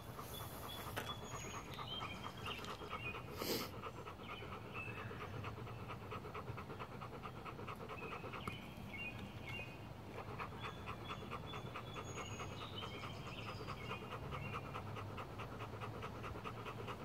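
Black Labrador retriever panting rapidly and steadily with its mouth open, winded from chasing a tennis ball.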